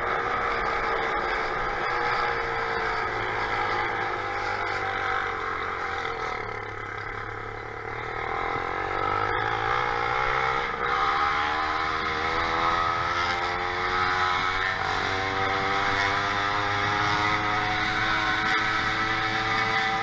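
Motorized bicycle's small engine running under way, its pitch sliding down as it slows over the first several seconds and dropping quietest about eight seconds in. It then climbs back up as the bike speeds up and holds steady, over wind and road noise.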